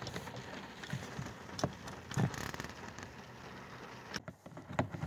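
Scattered light plastic clicks and knocks from a 1999 Chevy Prizm's interior door handle being handled and pushed into place in the door, over a faint steady hiss. The loudest knock comes a little after two seconds, and a quick run of clicks follows near the end.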